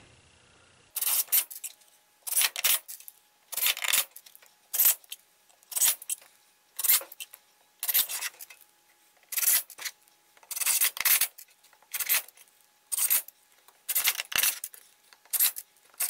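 Cordless driver running 1 5/8 inch screws into pine boards in short, sharp bursts about once a second.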